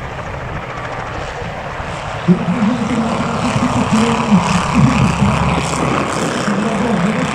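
Propeller engine of an ultralight Fieseler Fi 156 Storch replica running as the plane flies low past, growing louder about two seconds in.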